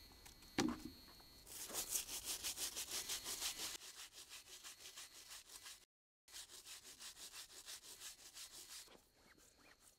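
Stiff hand brush scrubbing the rubber sidewall of a motorcycle's front tyre with soap and water, in quick back-and-forth strokes at about four or five a second. A short knock comes just before the scrubbing starts, and the strokes break off for a moment about six seconds in and grow fainter near the end.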